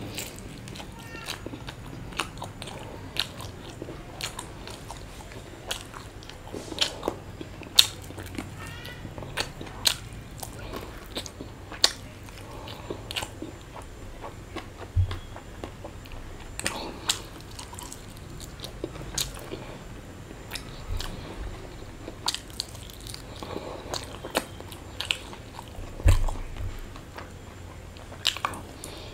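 A person eating a curried chicken leg piece: bites, chewing and wet mouth sounds with many irregular sharp clicks. Two dull low thumps, about halfway through and near the end.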